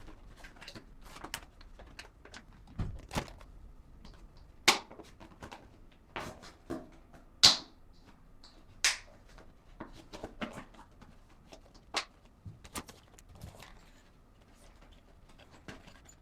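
Small packaged items being handled and put into an order package: irregular light taps, clicks and crinkles, with a few sharper knocks about a third and halfway in.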